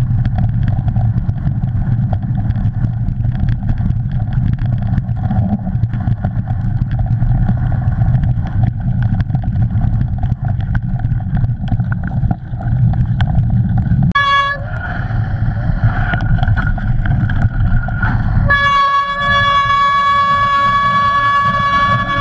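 Bike running fast over a rough forest track: a steady rumble of wind on the camera and tyres on the ground. About fourteen seconds in the rumble drops and a high squeal sets in, which turns loud and steady a few seconds later, the sound of wet, muddy brakes squealing under braking.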